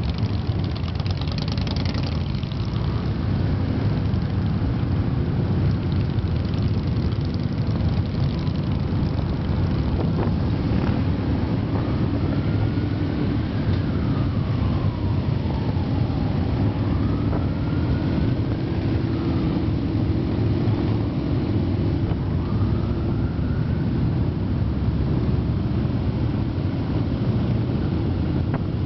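Motorcycle engines running steadily as a group of cruiser motorcycles rides slowly through traffic, a dense low rumble heard from on board one of the bikes. Faint rising and falling tones come and go near the middle.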